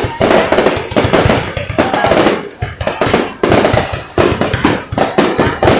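Aerial fireworks going off in a rapid, irregular series of loud bangs and crackles, several per second.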